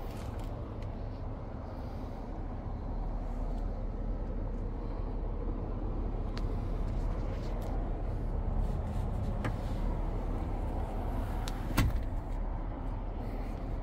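Steady low background rumble with a few light clicks, and a louder knock near the end as a hand presses the cloth seat.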